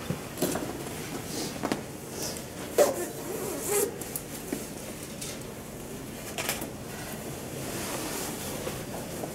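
Hushed room with scattered rustles and soft knocks, the sharpest a short knock about three seconds in.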